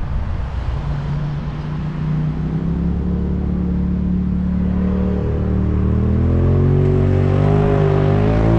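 Wind and road noise of a car driving, overlaid from about a second in by a steady, droning ambient music track that grows louder, its higher notes wavering in pitch near the end.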